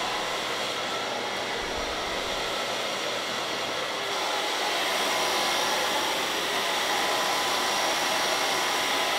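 Handheld hair dryer blowing steadily as damp hair is blow-dried, with a faint whine under the rush of air. It gets a little louder about halfway through.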